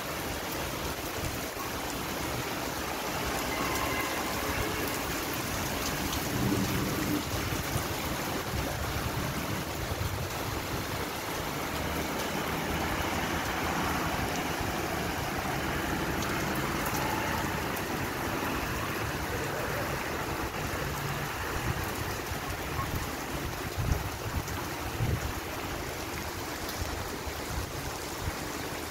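Steady rain falling on a flooded road, with muddy runoff water flowing across it. About halfway through, a car drives through the floodwater and its tyres spray through the water.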